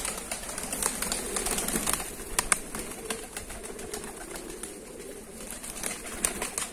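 A flock of pigeons pecking hard grape seeds off the ground: many quick, irregular taps and clicks, with low cooing underneath. A wing flap near the end.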